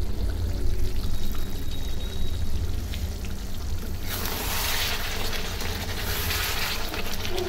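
Chicken curry bubbling and sizzling in its gravy in an aluminium kadai on a gas stove, over a low steady rumble. The sizzling hiss grows louder from about four seconds in.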